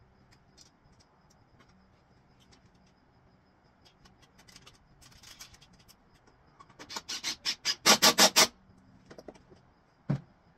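A fast run of ratcheting clicks, about eight a second, that grows louder for a couple of seconds past the middle and cuts off suddenly. It comes among small scratches and taps of hand work on the truck's front end, and a single dull knock follows near the end.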